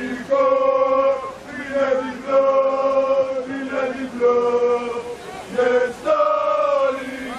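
A group of football supporters chanting a club song together, men's voices in long held notes of about a second each with short breaks between phrases.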